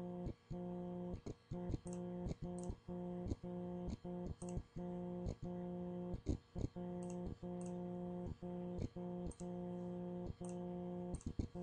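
A steady low electrical buzz with even overtones, from the recording setup, broken every half second or so by brief dropouts and sharp clicks.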